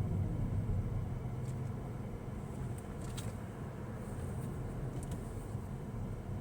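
Car driving: a steady low rumble of road and engine noise, easing slightly, with a few faint clicks.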